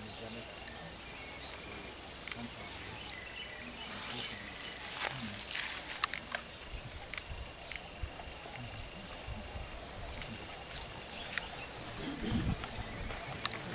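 Insects trilling steadily in a high-pitched, finely pulsing buzz, with scattered faint chirps and clicks.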